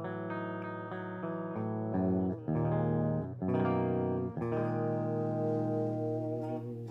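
Electric guitar freshly strung with Stringjoy Balanced Light 10-48 strings and tuned to D standard, played as a run of ringing chords that change about every second.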